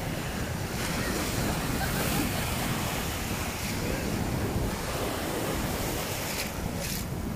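Small sea waves washing and breaking in the shallows, with wind buffeting the microphone.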